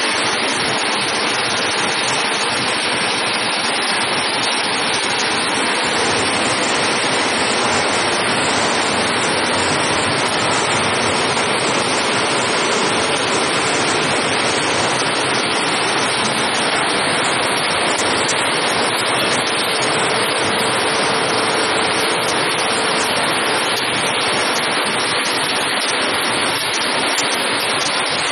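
Steady, loud industrial machinery noise: a continuous even rush with no distinct knocks, strokes or pauses.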